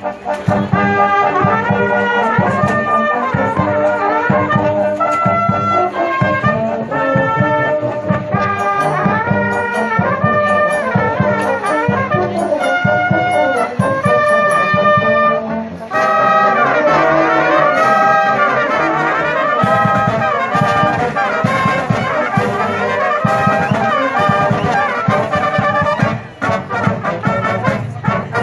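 Marching band playing: a brass melody of trumpets and trombones over steady drumming, with a brief break about halfway through before the next phrase.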